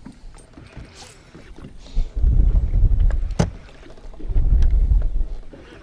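Wind buffeting a boat-mounted camera's microphone in two gusts of low rumble, each a second or so long, with a sharp click between them.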